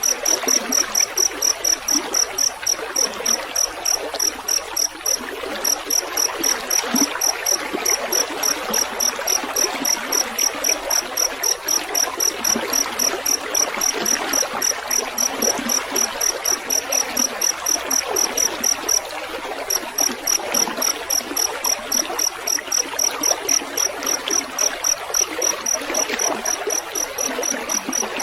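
A field cricket chirping in a steady, rapid pulse of about four high chirps a second, pausing briefly twice, over a continuous trickle of running water.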